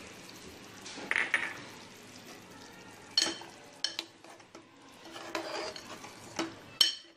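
A spoon stirring simmering curry in a metal cooking pot, knocking and scraping against the pot's side about half a dozen times, over a steady low bubbling hiss from the simmering gravy.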